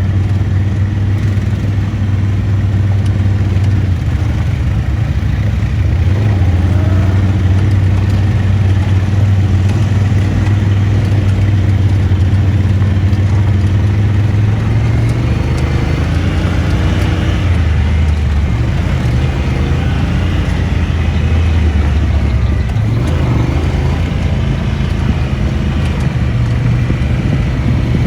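ATV engine running while riding, its low steady note shifting in pitch several times as the throttle and speed change.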